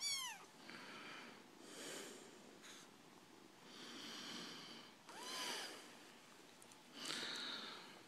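Calico kitten giving two high, thin mews, one right at the start falling in pitch and one about five seconds in that rises and falls, with short breathy sounds in between.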